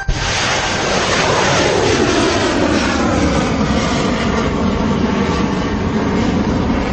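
Loud, steady jet-engine roar, with a slow falling sweep running through it over the first few seconds.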